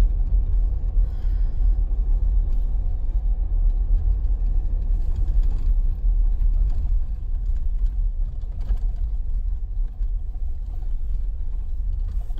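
Steady low rumble of a Mercedes G550 driving along a snowy dirt trail, heard from inside the cabin: engine and tyre noise, with a few faint knocks and rattles over bumps.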